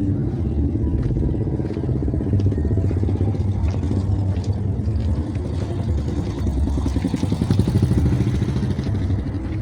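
A vehicle's engine running steadily on the road with road and wind noise, a low pulsing rumble with a few small clicks; a hiss swells briefly near the end.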